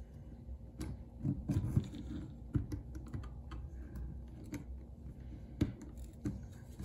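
Irregular light clicks and taps of metal on metal as an aluminium string-trimmer shaft is worked into the collar of a rotary scissors gearbox head. There is a cluster of knocks about one and a half seconds in, then single clicks now and then.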